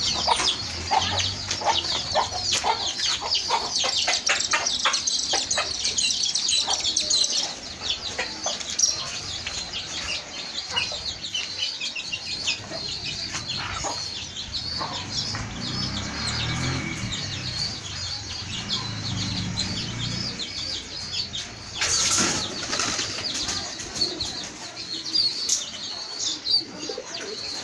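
Pigeons flapping their wings, with dense high chirping over the first several seconds and low cooing near the middle. There is one louder burst of flapping about two-thirds of the way through.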